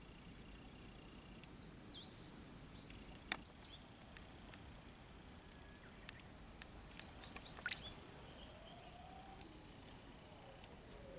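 Faint outdoor ambience with two short series of high bird chirps, about a second and a half in and again just past the middle, and two sharp clicks.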